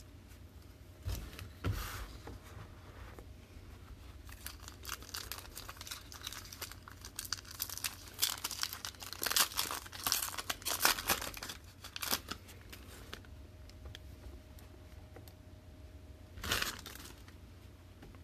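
Crinkling and rustling of a foil trading-card pack wrapper as cards are pulled out and handled, in scattered bursts with small clicks, busiest about nine to twelve seconds in and with one more burst near the end.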